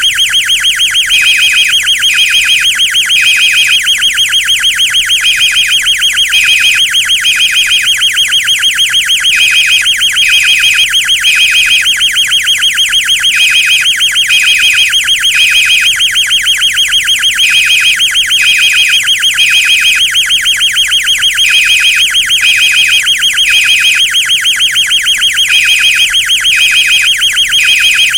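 Two fire alarm sounders going at once. One gives a continuous fast-warbling tone; the other beeps in repeating groups of three with a short pause between groups, the temporal-three evacuation pattern.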